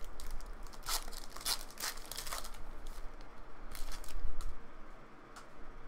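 Trading-card pack wrapper being torn open and crinkled by hand, a run of irregular rips and rustles that is loudest a little past halfway and dies down near the end.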